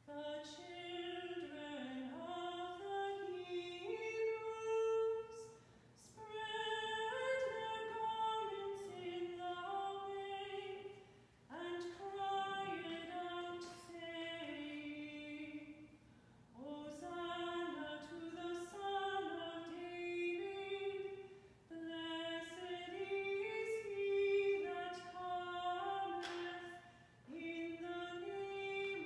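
Unaccompanied liturgical singing of a slow melody, sung in phrases of a few seconds each with short breaks between them.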